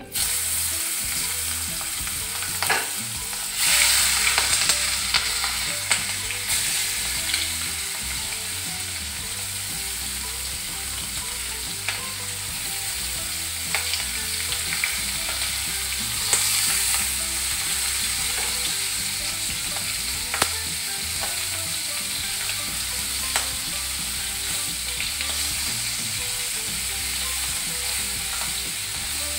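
Giant freshwater prawns sizzling as they fry in hot oil over a high flame, a steady hiss that swells louder for a couple of seconds about four seconds in. A few light sharp ticks sound now and then.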